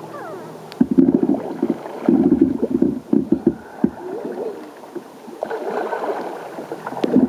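Water splashing and gurgling right at a waterproof camera on a kayak's front deck as the kayak is paddled, in several irregular bursts with sharp slaps of water.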